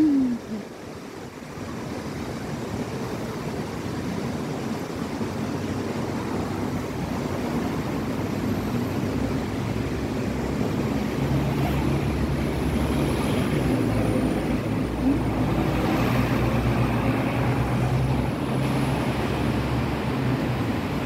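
Engine drone that grows steadily louder over about fifteen seconds and then holds, with a low hum and a faint high whine in its second half.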